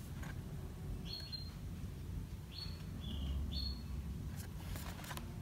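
Soft taps and rustles of stiff oracle cards being handled, with faint short high chirps about five times.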